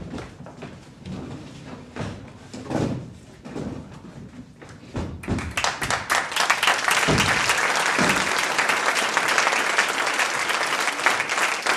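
Footsteps and thuds on a wooden stage floor as actors move off, then an audience breaks into applause about five seconds in and keeps clapping steadily.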